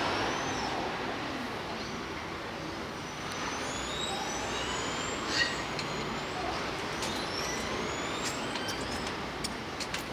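Killer whale calls: several high whistles gliding up and down, with a few sharp clicks, the loudest about five seconds in, over a steady background hum.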